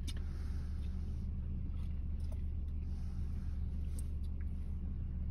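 Steady low rumble of a car, heard from inside its cabin, with a faint click at the start and another about four seconds in.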